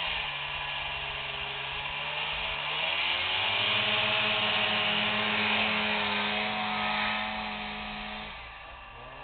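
Snowmobile engine working through deep powder snow, its pitch rising about three seconds in as it revs. It is loudest in the middle, then drops in pitch and fades near the end as the sled moves away.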